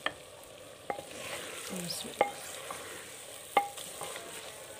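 Wooden spoon stirring chopped onions and green chillies into bitter gourds frying in an earthenware clay pot, with a soft sizzle. The spoon knocks against the pot four times, each knock ringing briefly.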